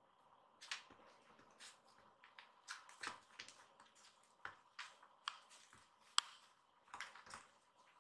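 Faint, irregular taps and scuffs of kittens scampering and pouncing on tatami mats while batting a small cloth toy mouse on a string, about a dozen light knocks at uneven intervals.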